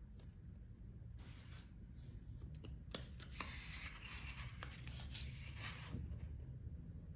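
Paper prints being handled and slid over one another: rustling and rubbing of paper in two short stretches, then a longer one from about three seconds in to about six, with a few sharp crackles.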